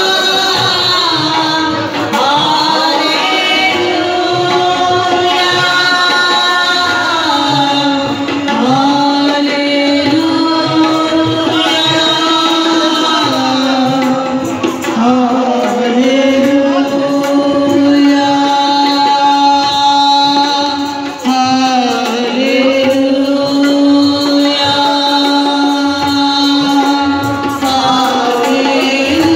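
Singing with tabla accompaniment, the voice holding long notes and sliding between pitches.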